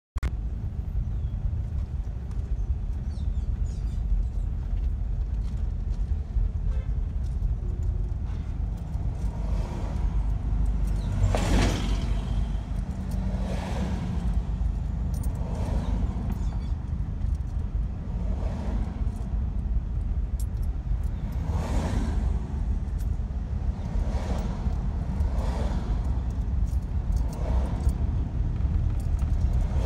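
Steady low road and engine rumble of a car driving slowly in traffic, with several other vehicles swishing past one after another, the loudest about eleven seconds in.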